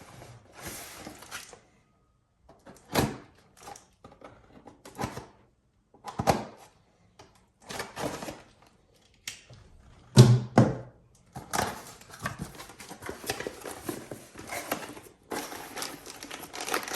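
Unboxing handling noises: scattered knocks and clatters of parts and packaging being handled, the loudest about ten seconds in, then continuous rustling and clicking from about eleven seconds on.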